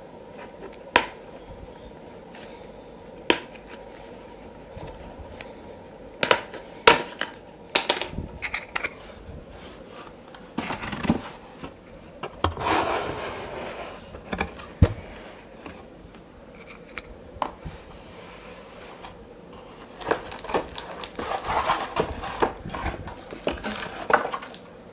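Cardboard shipping box being opened and unpacked by hand: packing tape pulled off and the box and packing handled. Scattered sharp knocks and taps, with a few longer rustling, scraping stretches.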